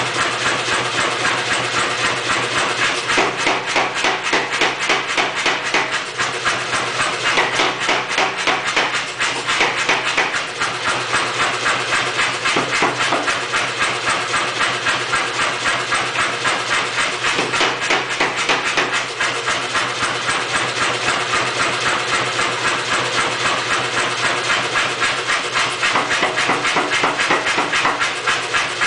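Say-Mak pneumatic power hammer striking hot steel in a fast, steady run of blows, rounding up the edge of a punched steel disk.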